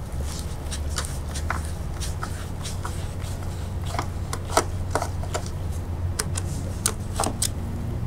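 Irregular small clicks and ticks of a hand screwdriver with a Torx T15 bit turning out the screws of an SP3 CPU socket's spring-loaded retention frame, over a low steady hum.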